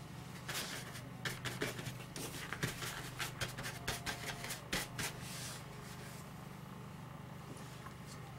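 Paintbrush scrubbing on the painted surface in a quick run of short, scratchy strokes, which stop about five seconds in.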